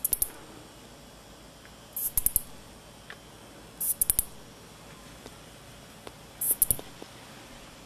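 Ezo-tsuyumushi katydid (Kuwayamaea sapporensis) calling. It gives very high-pitched phrases about every two seconds, each a short buzz followed by three or four quick sharp ticks.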